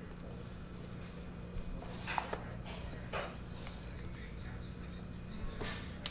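Faint handling sounds of a clear plastic card case and the stack of cards inside it being lifted out and turned in the hands: a few soft scrapes and clicks about two, three and five and a half seconds in, over a steady electrical hum.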